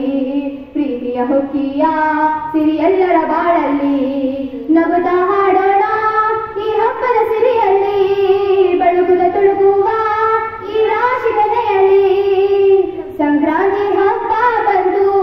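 A group of schoolgirls singing a song together, holding notes that move in steps, in phrases with short breaks between them.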